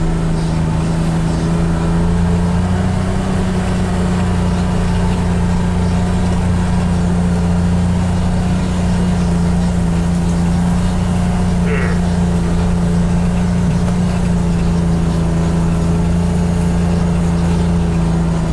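John Deere XUV835M Gator's gasoline three-cylinder engine running steadily while driving off-road, heard from inside its cab with the heater fan blowing.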